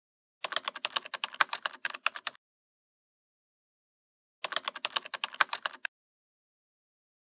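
Keyboard typing: two quick runs of key clicks, about seven or eight a second, the first about two seconds long and the second about a second and a half, with dead silence between them.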